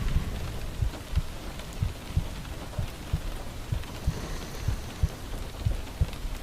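Slow heartbeat, a pair of low thumps about once a second, over the steady hiss of rain.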